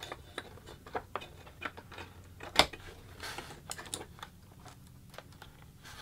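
Scattered light clicks and knocks as a replacement power supply circuit board is handled, lowered into the iMac's aluminium case and pressed into place, with one sharper click about two and a half seconds in.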